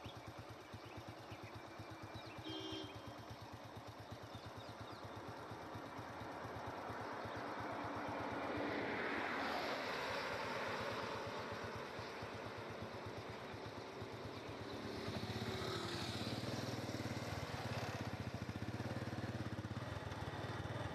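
A motor vehicle engine idling close by, with a steady low throb, while road traffic passes. Passing traffic swells louder about eight seconds in and again around fifteen seconds in.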